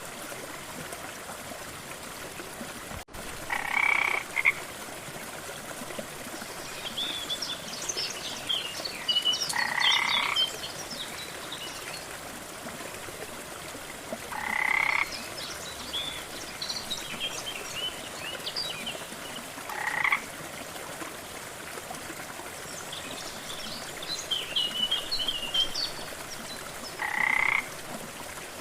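A frog croaking about five times, one short call every five or six seconds, over a steady rush of waterfall water. Between the croaks come clusters of quick, higher-pitched chirps.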